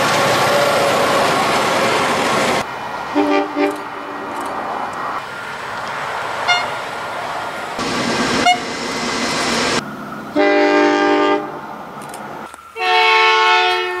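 Diesel locomotive horns from several trains, each sounding a chord of several steady tones. A locomotive passes close and loud with its horn going until a sudden cut about two and a half seconds in. Two short toots follow, then a one-second blast about ten seconds in and another about a second long near the end.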